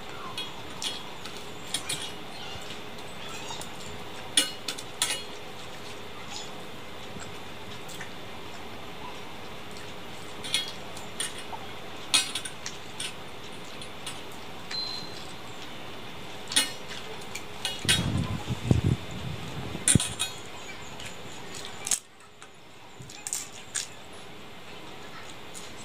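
Eating rice by hand from a stainless-steel plate: scattered sharp clinks of metal bangles and rings against the plate as the fingers mix the rice, with mouth sounds of eating. A short low hum comes about two-thirds of the way through.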